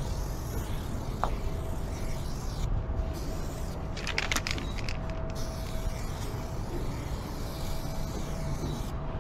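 Aerosol spray paint can hissing in stretches with brief breaks, as black paint goes onto the steel side of a freight car, over a low steady rumble.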